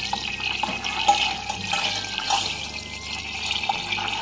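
Butter melting in a small cezve over the stove flame: a steady soft sizzling hiss with a few faint clicks.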